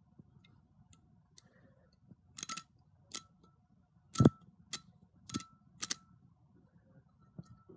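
A metal Zippo lighter being handled: a string of about seven sharp metallic clicks, the loudest a little past the middle, several leaving a short ring.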